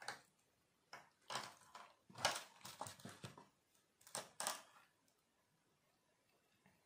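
Small plastic RC crawler chassis and parts being handled and set down on a tabletop: bursts of clicking, rattling plastic in the first four and a half seconds, then nothing.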